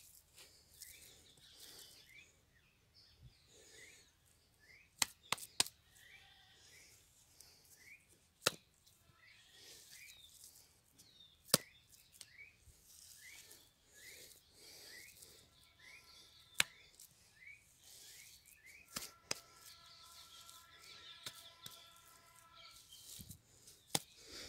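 Faint outdoor sound: a bird calls with short rising chirps about twice a second, while a few sharp knocks or slaps stand out, the loudest about five, eight and twelve seconds in.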